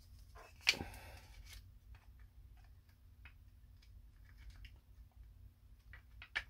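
Quiet scattered clicks and light taps of a plastic model hull part being picked up and handled over sheets of paper and styrene, with a sharper tap just under a second in and a few more near the end, over a faint steady hum.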